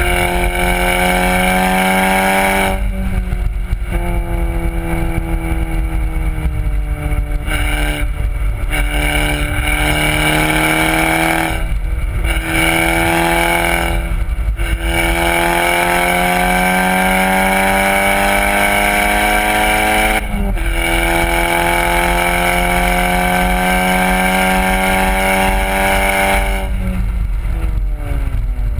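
VW Golf R's turbocharged four-cylinder through a Borla exhaust, accelerating hard on track. Its pitch climbs through each gear and drops back at each upshift, about every six to nine seconds, over steady wind and road noise.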